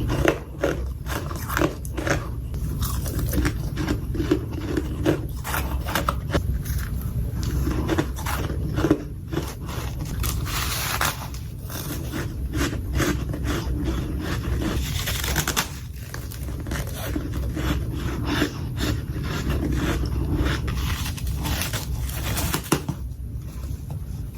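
Soft freezer frost being scraped and crunched in close-miked bites: many short, crisp crunches with a few longer scraping strokes, about 11 and 15 seconds in.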